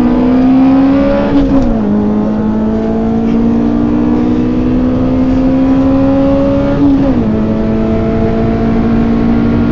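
Honda Del Sol's B16 four-cylinder engine pulling hard at high revs, heard from inside the cabin. The pitch climbs steadily and drops at two quick upshifts, about a second and a half in and about seven seconds in.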